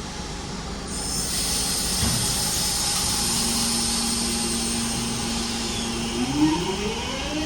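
Class 323 electric multiple unit starting to pull away. A hiss of air sets in about a second in, then a steady electric whine that begins rising in pitch about six seconds in as the train picks up speed.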